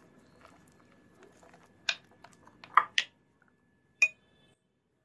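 Spoon stirring thick batter in a ceramic bowl: a faint wet scraping, then a few sharp clinks as the spoon knocks the bowl, the last one, near the end, ringing briefly.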